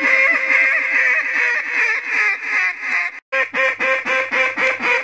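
Haydel's H2 acrylic mallard duck call being blown: a fast, unbroken run of chattering notes, then after a brief break a string of short quacks, about four a second.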